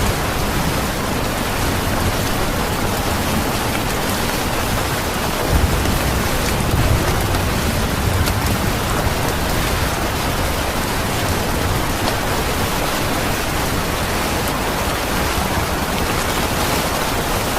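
Steady rain falling, an even hiss, with a brief low rumble about six seconds in.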